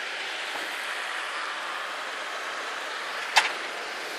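Steady rushing hiss of wind over open snowy ground, broken by one sharp click a little over three seconds in.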